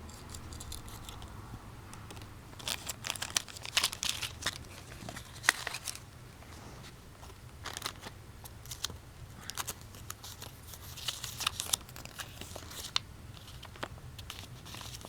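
Handling noise: irregular bursts of plastic crinkling and rustling with sharp clicks, coming in clusters for several seconds.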